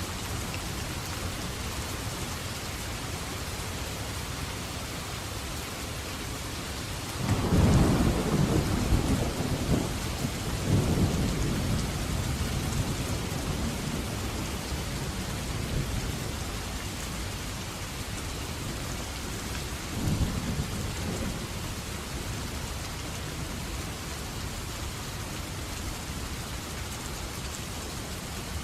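Steady rain falling, with rolls of thunder: a loud low rumble about a quarter of the way in that rolls on for a few seconds, and a shorter, fainter rumble about two-thirds of the way through.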